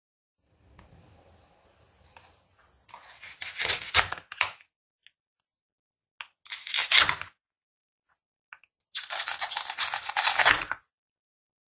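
Velcro joints of plastic toy fruit ripping apart as the pieces are cut and pulled open, in three short tearing bursts, the last and longest near the end.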